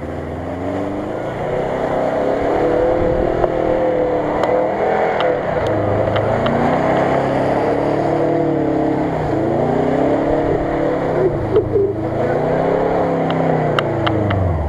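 First-generation Subaru Forester's flat-four boxer engine revving up and down several times as the car drives through deep mud, the pitch rising and falling in long swells.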